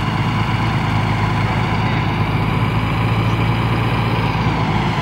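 Big lifted mud truck's engine idling steadily with a low rumble.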